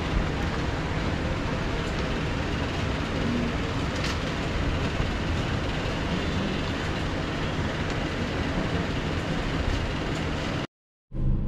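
Steady traffic and street noise with a low hum underneath and one faint click about four seconds in. Near the end it cuts out briefly and a quieter low hum comes in.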